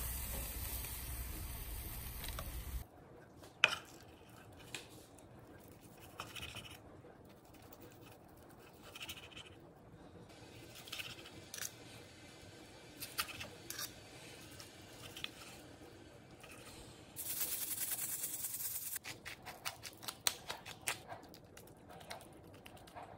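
A knife slicing through a seared tri-tip on a wooden cutting board, with a carving fork and a basting brush working the meat: scattered short scrapes and taps, and one sharp knock a few seconds in. A steady hiss fills the first few seconds and comes back briefly later on.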